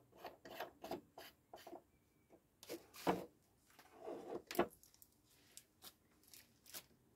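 Hands unpacking and handling the parts of a wax warmer lamp. Packaging rustles, with scattered light clicks and knocks; the sharpest come about three seconds in and again a second and a half later.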